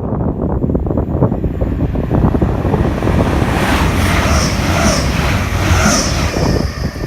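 A train passing on the rails: a steady rumble with rapid clatter, and a hiss rising through the middle of the pass.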